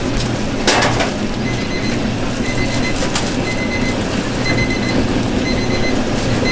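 Steady background noise of a food stall at work, with a short click a little under a second in and a short electronic beep repeating about once a second.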